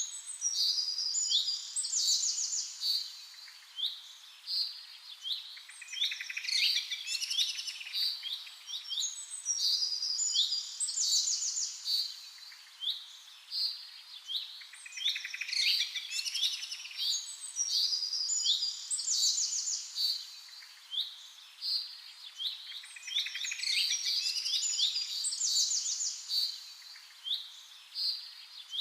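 Birds singing and chirping: quick high trills and short rising chirps that come in overlapping phrases, swelling and easing every few seconds.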